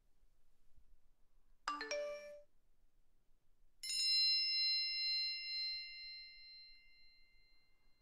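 Two phone alert tones: a quick run of a few rising notes about two seconds in, then a single bell-like ding about four seconds in that rings out slowly for several seconds.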